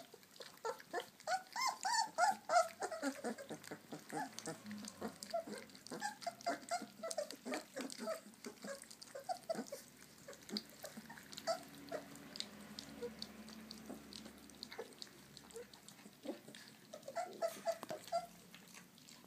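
A litter of puppies eating wet food from a stainless steel feeding dish: a steady run of small lapping and chewing clicks, with many short high whimpers and squeaks, thickest in the first few seconds and again near the end.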